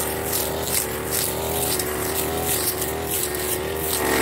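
Firman FGB389 backpack brush cutter's small engine running at high speed, its pitch wavering slightly under load, with the swish of the cutting head slicing through dry grass about twice a second.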